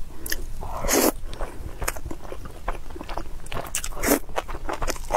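Close-miked eating sounds into a clip-on microphone: wet chewing with many small mouth clicks. A louder, short slurp comes about four seconds in, as red-sauced enoki mushroom strands are sucked into the mouth.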